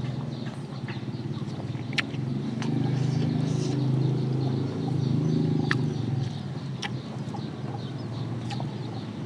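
Chickens clucking close by in a low, continuous run that grows louder for a few seconds in the middle, with scattered sharp clicks of eating over it.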